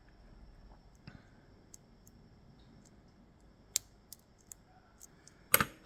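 Small metal parts of a disassembled Ezcurra DS-10 lock clicking as they are handled and worked: a few scattered light clicks, then a louder clatter of clicks near the end.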